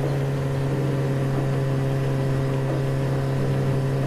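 Scooter engine running at a steady speed while riding, a constant drone that holds one pitch without revving up or down.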